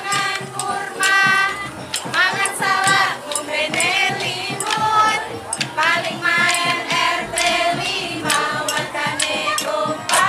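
Music: voices singing a melody with vibrato over a steady percussion beat.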